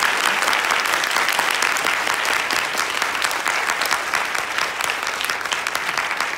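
Audience applauding steadily: a dense wash of many hands clapping.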